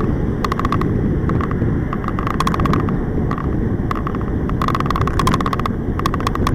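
Wind rushing over the microphone of a bullet camera mounted on a tandem bicycle riding at speed, a loud steady low rumble. Over it come frequent clusters of sharp rattling clicks from the moving bike and camera mount.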